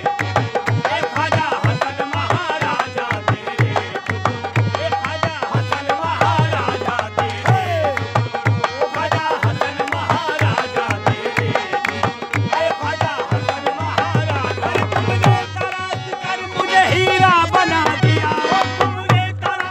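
Men singing a devotional song over fast hand-played dholak barrel drums, with steady drum strokes throughout; a louder high voice stands out near the end.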